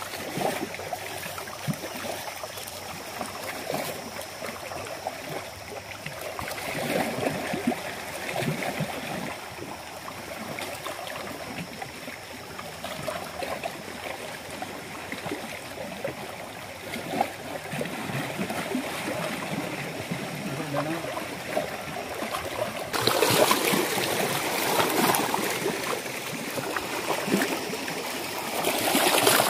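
Small waves lapping and splashing against the rocks of a lakeshore, a steady irregular wash that grows louder for the last several seconds.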